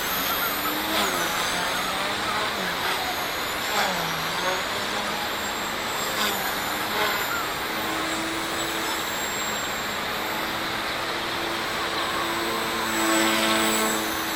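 XK K130 RC helicopter with a 3D-printed main gear flying, its motors and rotors whining and rising and falling in pitch with the throttle, then holding steadier and getting louder about thirteen seconds in, over a steady noisy hiss.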